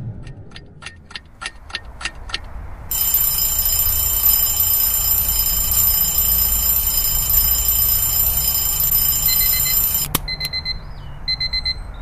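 Mechanical alarm clock ticking about four times a second, then its alarm ringing steadily for about seven seconds before it is cut off with a click. A few short high electronic beeps follow.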